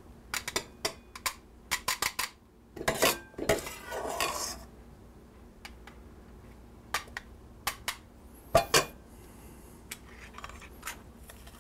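Metal clinks and knocks of a stainless steel potato ricer and a spoon against a stainless steel mixing bowl as boiled potatoes are scooped and riced. The clinks come thick in the first two seconds, then more sparsely, with a longer scraping stretch around three to four seconds in.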